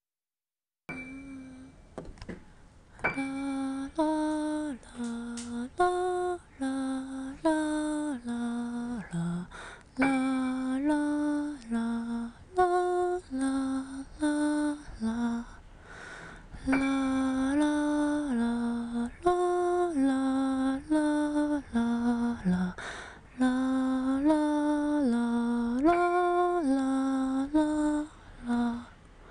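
A woman humming a slow, simple melody in held notes, phrase after phrase with short breaks between them.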